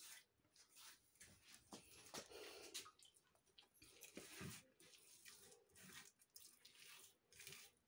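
Faint, irregular wet dabbing and smearing of a hand spreading watery mud plaster over an earthen wall.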